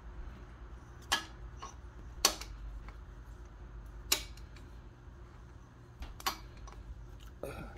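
Sharp metal clicks and clinks of hand tools and parts as the carburettor and throttle cable are refitted on a Honda 300EX quad, about six ticks spaced a second or two apart with a short rattle near the end, over a low steady hum.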